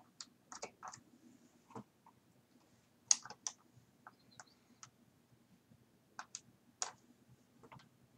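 Irregular clicks and key taps at a computer mouse and keyboard, short single clicks, the loudest about three seconds in and again near the end.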